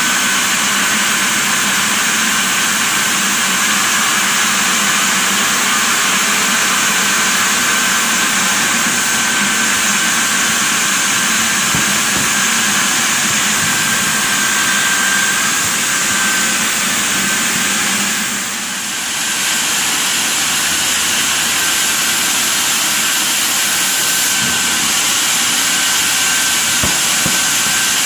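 Sawmill band-saw headrig running as it cuts a large log on the carriage: a loud, steady noise with a thin whine in it. The noise dips briefly about two-thirds of the way through.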